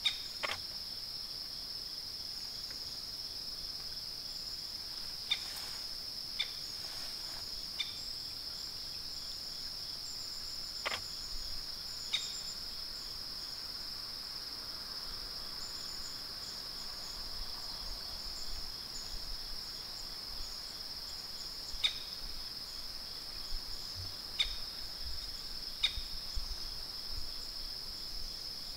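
Insects trilling in one steady, high-pitched drone, with a sharp tick every few seconds and faint, high bird chirps.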